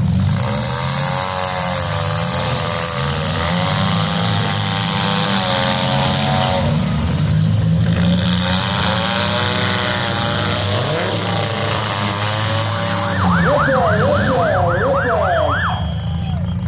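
Demolition derby cars' engines running and revving hard, with whining pitches that rise and fall as they accelerate. From about 13 to 16 seconds a fast up-and-down siren-like wail joins in.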